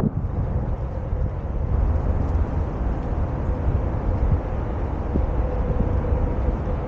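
Wind buffeting the microphone: a steady low rumble with a faint, even hum running through it.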